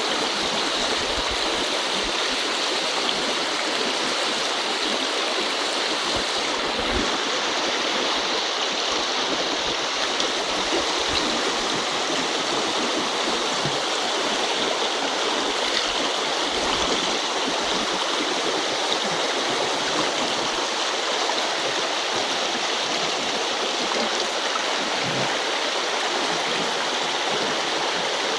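A small river's current rushing steadily, an even, unbroken wash of flowing water.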